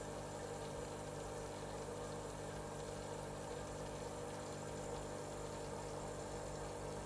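Steady low hum with several steady low tones, unchanging throughout.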